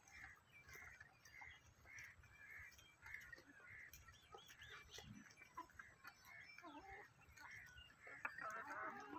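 Faint bird calls: a short note repeated about twice a second, joined about two-thirds of the way in by busier, overlapping chirps and clucks.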